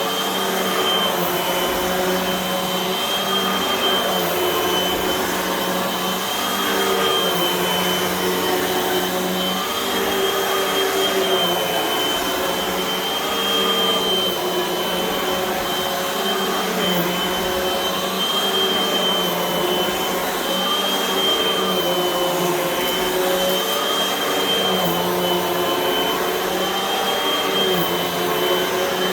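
Hoover WindTunnel upright vacuum cleaner running on carpet: a steady motor drone with a high whine, its pitch wavering slightly every few seconds.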